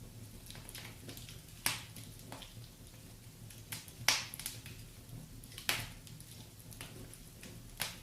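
Wood fire burning with a low steady rumble, broken by sharp crackles and pops, four louder snaps among smaller ticks.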